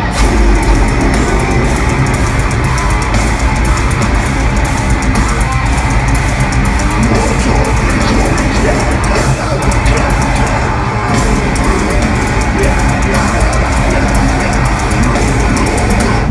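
Metalcore band playing live, heard from the crowd: loud, dense distorted guitars over fast, driving drums.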